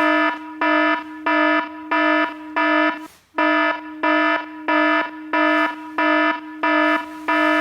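Electronic alarm sounding in a steady run of loud, pitched beeps, about one and a half a second, with one short break a little past three seconds in.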